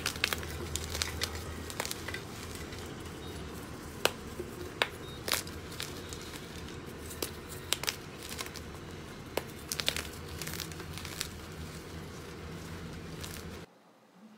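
Slime being pressed and worked by hand, giving many small crackles and pops over a soft sticky rustle, cut off abruptly near the end.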